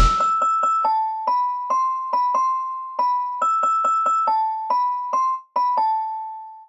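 Music: a simple melody on an electric-piano-like keyboard, single notes played one at a time about two to three a second, ending on a longer note that fades away.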